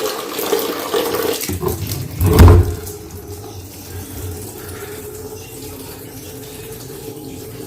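Water running from a tap into a container, with a low thump about two and a half seconds in; after the thump the running water is quieter and steady.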